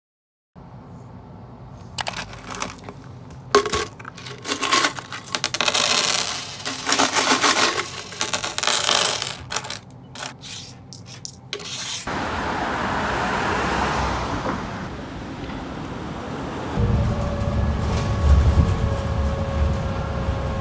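Metal coins clinking and dropping on a hard tabletop as they are handled and sorted, in a quick jumble of small clinks. About twelve seconds in, this gives way to the steady running noise inside a moving city bus, with a low rumble growing near the end.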